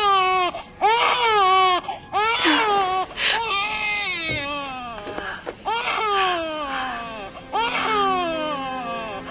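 Newborn baby crying: a string of short cries, about one a second, each rising and then falling in pitch.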